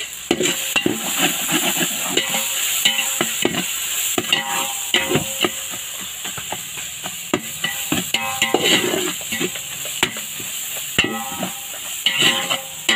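Steel spatula stirring and scraping a frying onion-tomato masala in an aluminium pot, with the oil sizzling steadily. The spatula knocks and scrapes against the pot many times, some knocks leaving a brief metallic ring.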